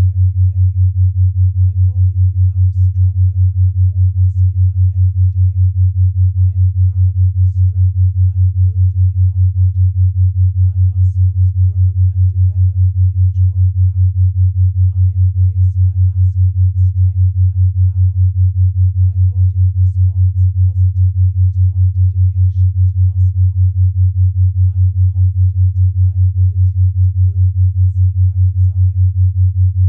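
Binaural-beat tone: a steady low pure tone, pulsing evenly at five beats a second, the 5 Hz beat of two slightly detuned tones.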